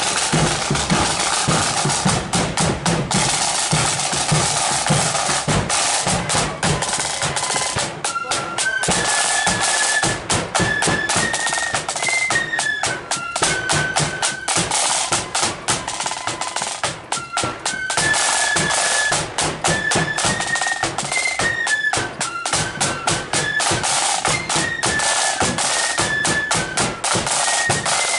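Marching flute band playing: rapid snare drum rolls and a bass drum beat. A high flute melody comes in about eight seconds in.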